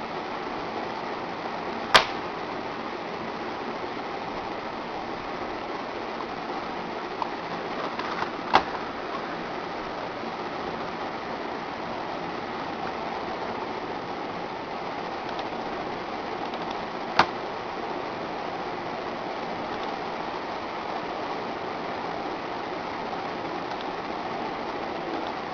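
Computer mouse button clicked three times, single sharp clicks several seconds apart, over a steady hiss.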